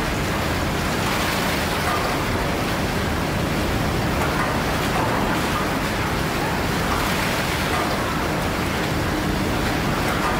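1858 R. W. Hawthorn beam pumping engine running under steam, giving a steady, even hiss and rumble of steam and machinery.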